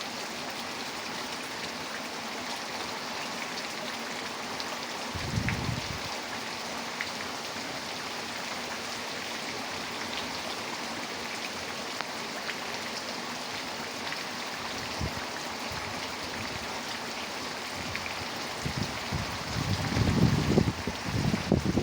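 Heavy rain falling steadily, a dense hiss dotted with drop ticks. Wind buffets the microphone in a brief low rumble about five seconds in, and in stronger gusts near the end.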